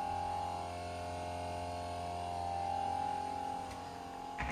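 A steady hum made of a few held tones, with a low drone beneath, shifting slightly about halfway through.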